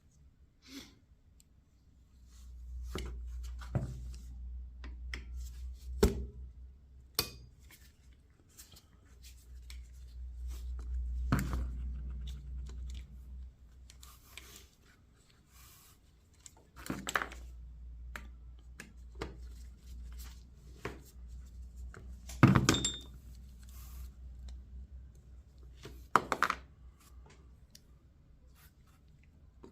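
Scattered clicks, knocks and clatter of small carburetor parts being handled and cleaned on a bench, with a low rumble through the first half and the sharpest knock a little past two-thirds of the way in.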